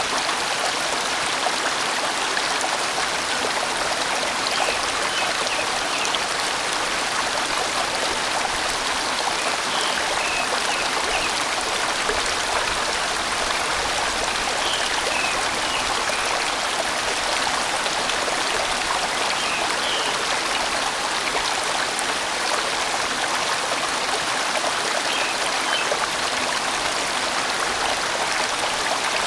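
A sizeable mountain stream rushing and winding over rocks, a steady even flow of water.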